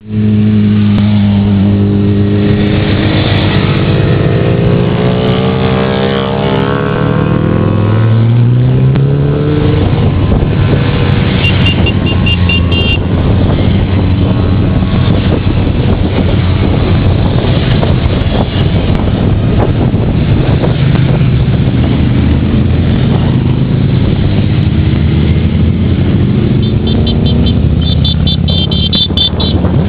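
A long procession of motorcycles riding past one after another, their engines running loud and continuous. Individual engine notes rise and fall as bikes go by, with one climbing sharply about eight seconds in.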